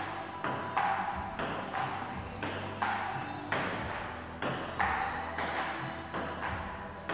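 Table-tennis ball going back and forth in a rally: sharp clicks of paddle hits and table bounces, about two a second, each ringing briefly in the room.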